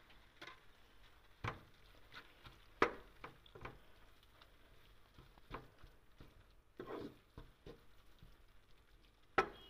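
Wooden spatula stirring a thick mixture in a frying pan, knocking and scraping against the pan in irregular taps, the loudest one near the end.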